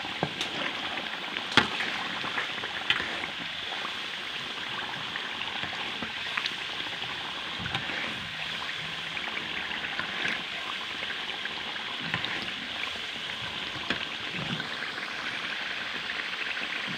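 Coconut milk boiled down to oil in a metal pan: the curds fry in the released oil with a steady sizzling crackle. This is the last stage of making coconut oil, with the curds turning yellow. A metal spoon knocks against the pan a few times in the first three seconds.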